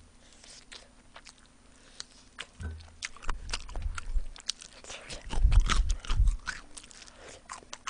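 Close-miked eating of fried chicken: wet chewing with crisp crackles and clicks, as meat is bitten and torn apart by plastic-gloved hands. Heavy low thuds come about five to six seconds in and are the loudest part.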